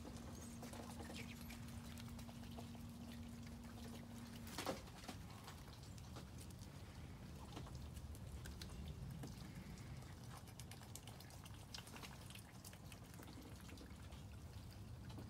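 Rainwater dripping and pattering in scattered faint drips after rain. A single sharp tap about four and a half seconds in is the loudest sound, and a faint steady hum stops at the same moment.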